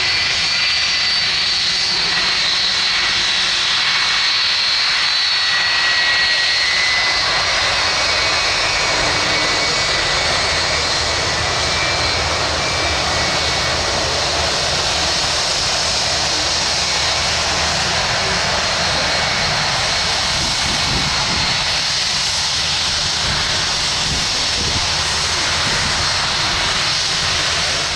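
Jet engines of an inbound Ryanair airliner arriving on the runway: a loud, steady rush of engine noise, with a high fan whine that fades about halfway through.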